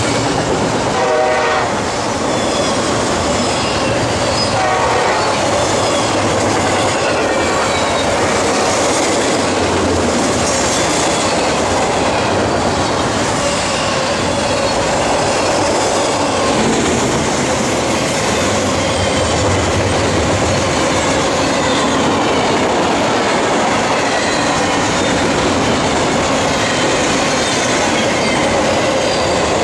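Double-stack intermodal freight cars rolling past at close range: a steady, loud rumble and clatter of steel wheels on the rails, with thin high wheel squeals over it.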